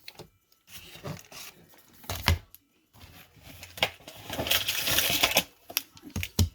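A trading card pack's wrapper being torn open and rustled, with a few sharp knocks as the pack and cards are handled.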